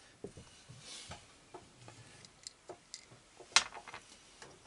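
Scattered light clicks and taps of small metal hardware being picked up and handled on a workbench, with one sharper click about three and a half seconds in.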